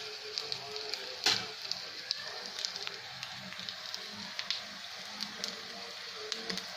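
Hot oil sizzling in a pan, a steady hiss with many small crackling pops and one sharper click about a second in.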